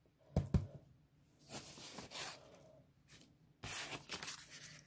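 Paper banknotes rustling and sliding as they are laid out by hand on a paper sheet, with two quick taps on the table about half a second in.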